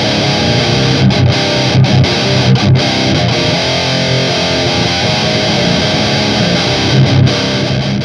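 Electric guitar run through a Digitech Grunge distortion pedal, playing a heavy, down-tuned riff of thick, sustained low chords with a few short choked stops.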